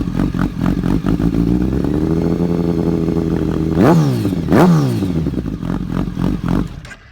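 Kawasaki ZX-12R's inline-four engine idling loud and uneven through a Beet titanium header and a conical titanium MotoGP-style silencer. About four seconds in it gets two quick throttle blips, each a sharp rise and fall in pitch. The sound cuts off near the end.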